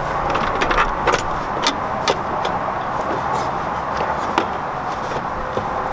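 A steady background hiss, with a few sharp light clicks and taps scattered through it from hands handling plastic parts around a car's headlight assembly.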